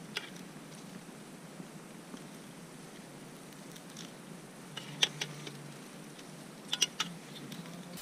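A small folding knife clicking and scraping against a metal dish while sausages are cut on it: a few sharp ticks, bunched about five and seven seconds in, over a steady hiss. A short burst of static noise right at the end.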